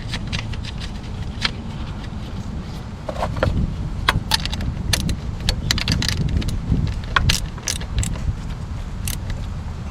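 Wrench and metal hardware clinking in a run of short, sharp clicks, thickest in the second half, as the nut on the repaired battery charging lead is tightened and the wiring is hooked back up. A low steady rumble sits underneath.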